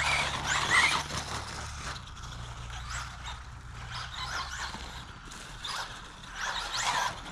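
Brushless electric motor of a Traxxas Bandit RC buggy (Velineon VXL-3s system) whining up and down in short bursts as the throttle is blipped on a rough dirt track. The whine peaks about a second in and again near the end.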